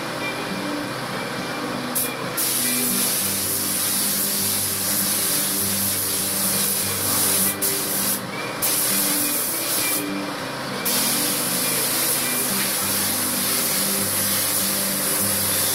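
Compressed-air paint spray gun hissing as it sprays a car's body panels. The spray starts about two seconds in, stops briefly twice around the middle, then runs on. A low hum sits underneath.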